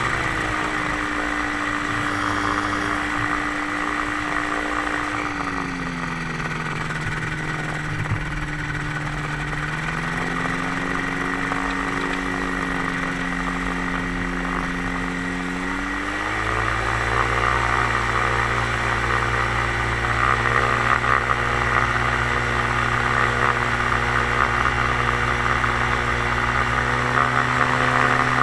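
Dominator gyroplane's rear-mounted pusher engine running while taxiing, its pitch dipping about five seconds in and rising again twice. About sixteen seconds in it is throttled up and runs louder and steadier at a higher pitch.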